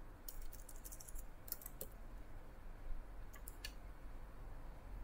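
Computer keyboard keys being typed in three short runs of keystrokes, over a faint low hum.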